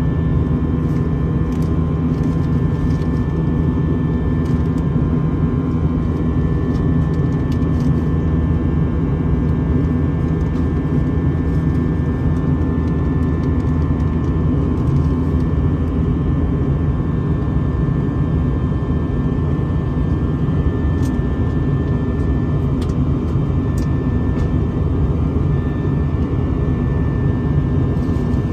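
Airliner jet engine and rushing air heard from inside the cabin during the climb after takeoff: a steady deep drone with a few faint steady whining tones over it.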